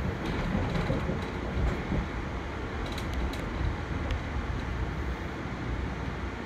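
Steady low rumble and rolling wheel noise of a moving Amtrak Downeaster passenger coach, heard from inside the car, with a few faint clicks about three to four seconds in.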